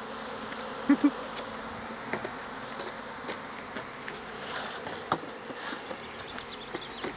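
Swarm of honeybees flying all around, a steady dense buzzing of many bees. Two brief loud blips about a second in, with scattered small clicks.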